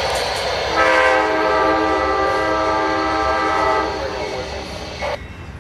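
Diesel locomotive air horn sounding one long steady chord of several tones over the rumble of the approaching train. The horn comes in about a second in and fades out after about four seconds.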